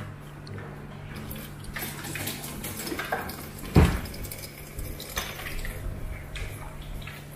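Minced beef frying in a frying pan on a gas hob, with a spatula scraping and clattering against the pan. There is one loud knock a little under four seconds in.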